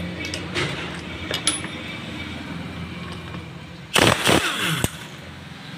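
A few light metal clinks of loose bolts being handled, then about four seconds in a power ratchet spins a cover bolt loose on a motorcycle engine for about a second, its pitch falling as it winds down.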